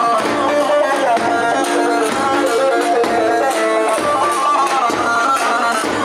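Live Turkish folk band music, instrumental only: a melody instrument playing a moving tune over a steady, regular drum beat.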